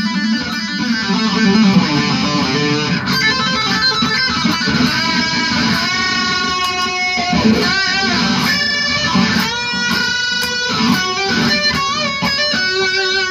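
Electric guitar played through an ADL Multi Stompbox 5FX with its auto-wah switched on, the drive and analog delay also engaged, so the notes are swept by the wah filter. A continuous phrase of picked notes and chords.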